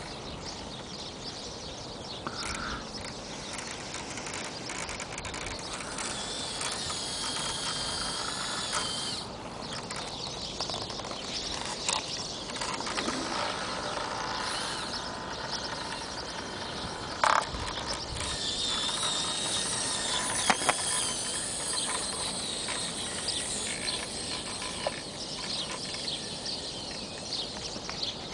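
Small electric motor and gearbox of a Mini-Z Overland RC truck whining as it crawls over dirt, the pitch wavering up and down with the throttle, with a few sharp clicks.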